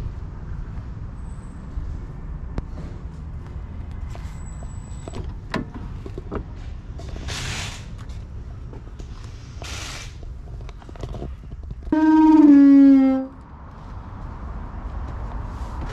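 Clicks and clunks of a 1996 Toyota Hiace camper van's doors being opened and handled, over a steady low rumble of wind on the microphone. About twelve seconds in comes a loud squeal, pitched and dropping slightly, lasting just over a second.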